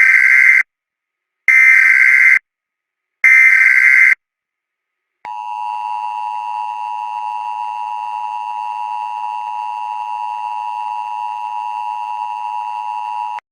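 Emergency Alert System header: three loud bursts of harsh data tones, each just under a second long and about a second apart. After a short gap comes the EAS attention signal, a steady two-tone sound held for about eight seconds that cuts off abruptly, marking the start of an alert message.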